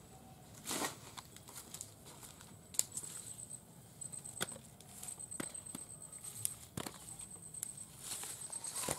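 Leaves and vines rustling and stems snapping as gourds are picked by hand and dropped into a bamboo basket, with a handful of sharp cracks and footsteps in the undergrowth. A thin high-pitched tone comes and goes in the background.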